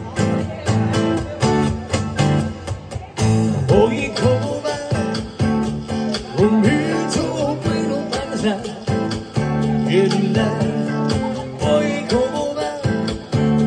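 Acoustic guitar strummed in a steady rhythm, with a man singing live over it into a microphone from about four seconds in, amplified through a PA speaker.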